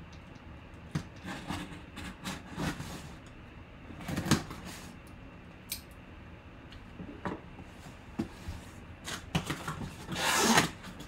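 Folding-knife blade cutting through the tape seal on a cardboard box, with scattered scrapes and taps. About ten seconds in comes a longer, louder stretch of cardboard flaps and inserts rubbing and sliding as the box is pulled open.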